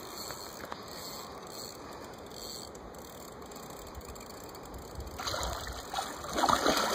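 Fishing reel ticking as line is wound in on a hooked sturgeon. About five seconds in, louder splashing as the sturgeon thrashes at the surface close to the bank.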